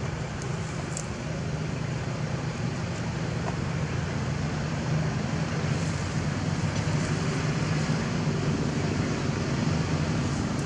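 Steady low hum of an engine running, with no change in pitch, under a faint hiss of outdoor noise.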